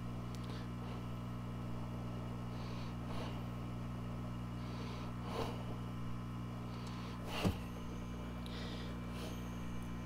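Hot-air rework station's heat gun blowing: its fan runs as a steady low hum. A few faint short noises come over it, the loudest about seven and a half seconds in.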